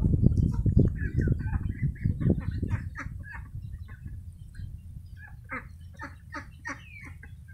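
Chickens clucking, a run of short calls through the second half, with a small bird chirping near the end. A low noise is loudest over the first few seconds and then fades.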